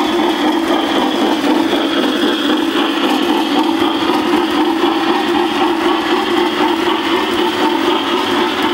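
O gauge three-rail model train running past: the metal wheels of the scrap-loaded gondolas rolling on the track, making a steady whirring noise.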